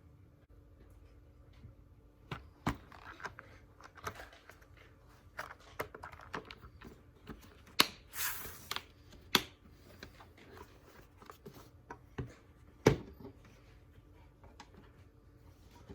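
Handling noise: scattered sharp clicks and knocks of objects being picked up and set down, with a brief rustle about eight seconds in, over a steady low hum.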